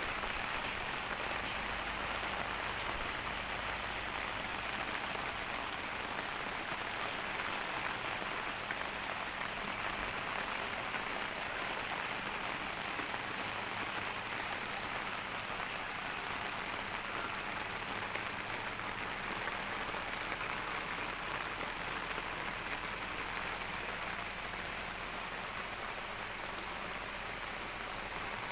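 Steady rain falling, an even hiss of drops with scattered small ticks.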